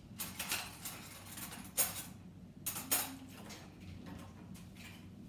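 Kitchen utensils and a jar being handled: a few scrapes and clinks, with two sharp knocks about two and three seconds in, as a tablespoon of peanut butter is scooped out.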